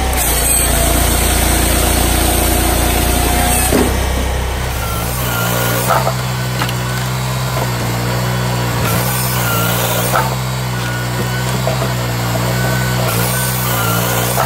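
Dyna firewood processor's engine and hydraulics running steadily, the note dipping and wavering again and again as the machine works under load. A few sharp knocks come as the log is moved, and near the end the saw is cutting through the log.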